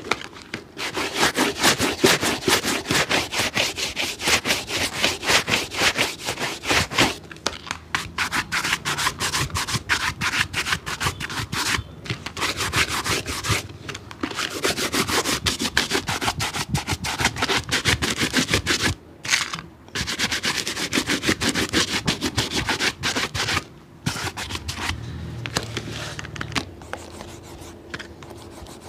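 Fast, continuous back-and-forth rubbing strokes on a shoe, many per second, with a few brief pauses.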